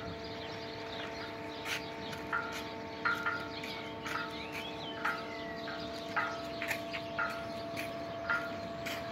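The boat crane's motor hums steadily at an even pitch. About a dozen short, high chirps and squeaks are scattered over the hum, one of them sliding in pitch about four seconds in.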